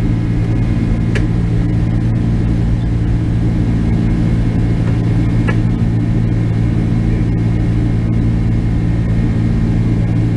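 Cabin noise of a Boeing 767 climbing after takeoff, heard at a window seat beside the engine: a loud, steady rumble with a low engine hum and a fainter high whine. There are a few faint clicks.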